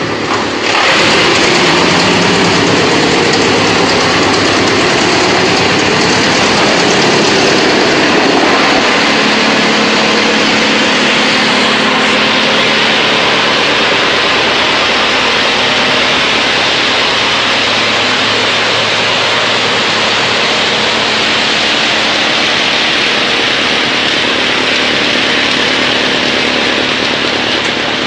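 Rotexmaster BX218 wood chipper running under its electric motor while chipping wood fed through its infeed rollers: a loud, dense, steady machine noise that jumps up about a second in and then holds level.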